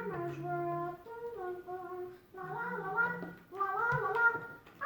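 A child singing a tune without clear words, in held notes of about a second each with short breaks between them.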